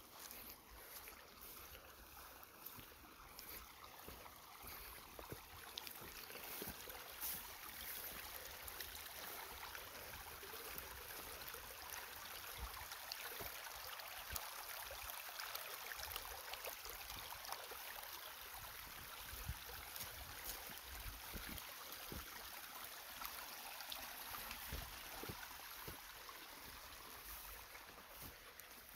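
Irrigation water running along a dirt furrow, a steady rushing trickle, with low wind rumble on the microphone and scattered small ticks.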